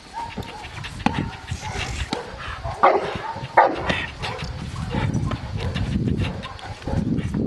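A Cane Corso barking repeatedly while it lunges on its leash at a helper with a bite sleeve in protection training. The loudest barks come about three and three and a half seconds in. A low rumbling noise rises in the second half.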